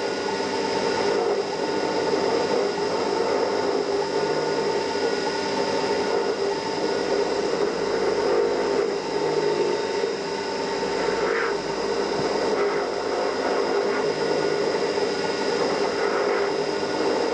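Small CNC milling machine running steadily, its spindle turning and the cutter milling the inlet port of a model diesel engine.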